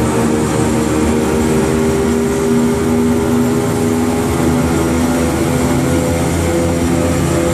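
Mercury outboard engine of a 1999 Pro Line 2610 boat running steadily at cruising speed, with wind and water rushing past the hull.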